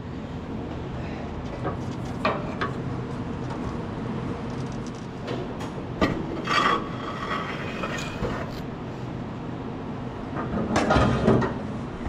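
A steady engine hum runs under intermittent metal knocks and clatters as a heavy roller and its bearing are worked loose from a hay baler. The clatter is busiest near the middle and again near the end.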